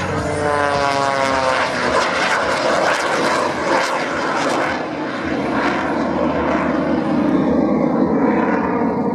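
An aerobatic biplane's piston engine and propeller, over 400 horsepower, running at high power. Its pitch falls over the first two seconds, then it holds a steady, loud note as the plane climbs.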